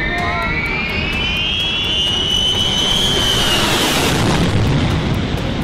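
Four-engined Ilyushin Il-76 jet flying low overhead, its turbofans running with a high whine that rises in pitch for about three seconds. The whine then fades into a broad rushing noise.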